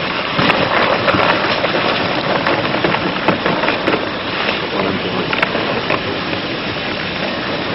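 Firefighting hose jet of water with FireAde 2000 agent spraying into a burning steel drum: a steady loud hiss of spray and splatter, with scattered sharp cracks and splashes as the fire is knocked down.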